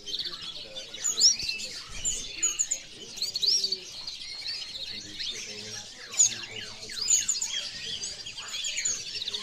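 Many caged canaries chirping and singing at once, a dense overlapping chorus of short high chirps and trills.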